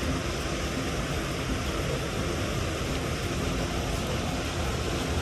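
Steady rush of water pouring from an inflow into a small river.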